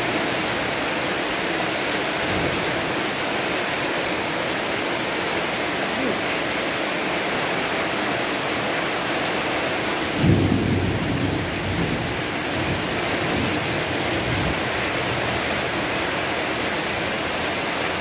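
Heavy rain pouring steadily. About ten seconds in, a low rumble lasting a second or so stands out as the loudest moment.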